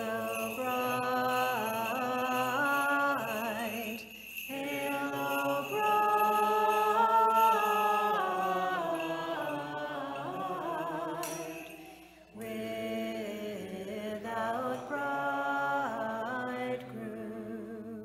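Unaccompanied Orthodox liturgical chant sung by voices, in three phrases with short breaks about 4 and 12 seconds in.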